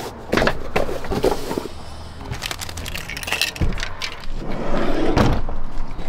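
Handling noise of someone moving about in a van: rustling with irregular knocks and clatters, the loudest around the middle and near the end.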